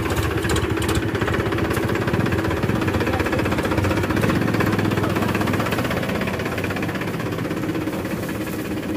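Powertrac Euro 50 tractor's three-cylinder diesel engine running steadily as the tractor drives along, towing a thresher.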